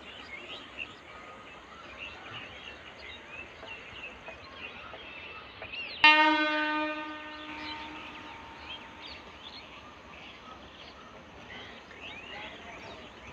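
Electric locomotive horn sounding one blast about six seconds in as the train approaches, cutting in suddenly and fading out over about two seconds. Birds chirp throughout.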